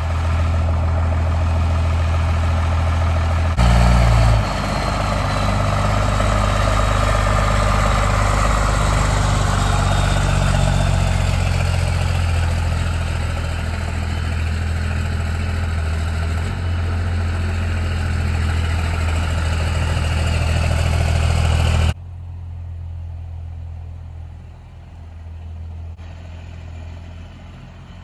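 First-generation Dodge Ram pickup's engine running at a steady idle, with a short rev about four seconds in. Near the end the sound drops abruptly to a quieter engine hum.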